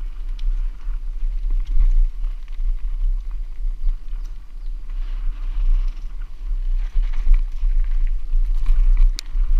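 Mountain bike riding fast down a dirt trail, heard from a camera mounted with the rider: a steady low rumble of wind and trail vibration on the microphone, with tyre noise over the dirt and scattered rattles and clicks from the bike, one sharp click near the end.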